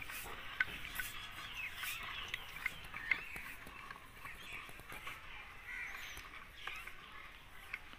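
Birds chirping and calling, many short overlapping chirps, with a few sharp clicks in the first few seconds.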